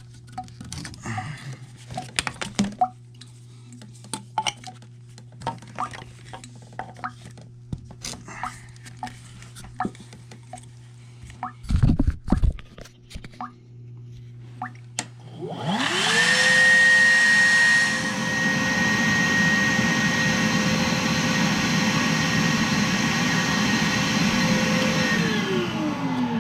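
Scattered clicks and knocks of hands working on the drain fittings. Then a wet/dry shop vacuum switches on about halfway through and spins up to a steady whine with rushing air, pulling on a clogged furnace condensate drain line. It winds down near the end.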